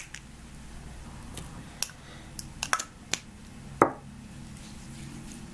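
A few sharp clicks and taps from a small cosmetic bottle with a pump dispenser being pressed and handled. The loudest click comes about four seconds in.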